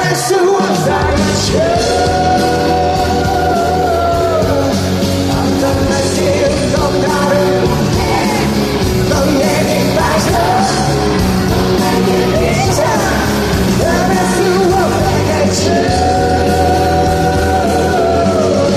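Live rock-pop band playing at full volume with a male lead singer belting and holding long sustained notes, three times over, in a large hall.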